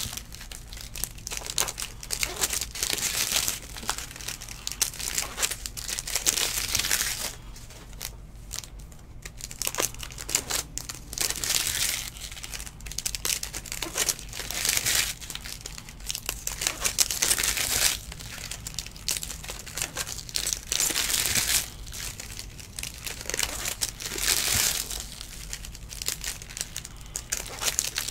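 Trading card packs being opened and sorted by hand: foil pack wrappers crinkling and tearing, and baseball cards sliding and flicking against each other, in repeated bursts of a second or two.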